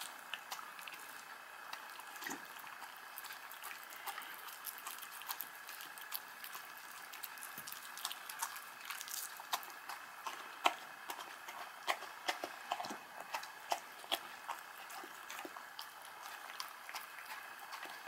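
A dog and a kitten eating soft, wet homemade food from the same bowl: irregular wet smacking, lapping and chewing.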